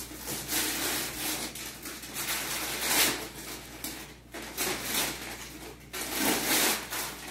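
Gift wrapping paper crinkling and tearing in uneven bursts as presents are unwrapped by hand, loudest about three seconds in and again near the end.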